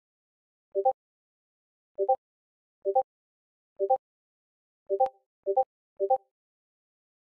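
Discord new-message notification sound: a short two-note pop, played seven times, each time a chat message arrives, the last three in quick succession.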